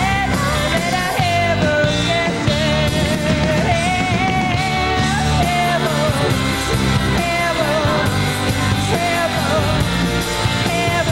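A woman singing lead over a live rock band of drums, bass, electric guitar and keyboards, her voice carrying a long wavering melody line.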